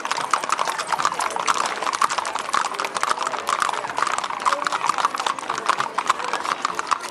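Hooves of a walking pack string and a saddle horse clip-clopping on asphalt, many overlapping strikes in an uneven steady patter.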